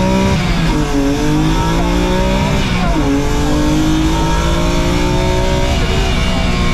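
BMW E36 rally car's engine accelerating hard through the gears, heard from inside the cockpit: its pitch climbs and then drops at an upshift about a second in and again about three seconds in, climbing again after each.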